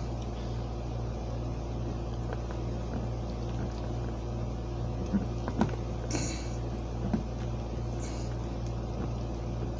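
A few light clicks and short scrapes of a screwdriver tip working at metal model railroad track, over a steady low hum.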